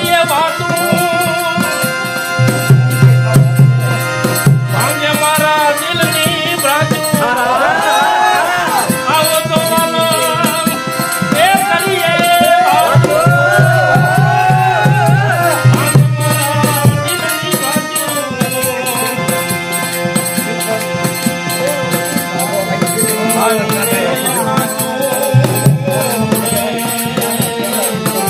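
Gujarati devotional bhajan played live: a harmonium sounding held chords and melody under a man's singing, whose lines waver and bend in ornaments, with percussion keeping the beat. A deep held bass note comes in three times, for a few seconds each.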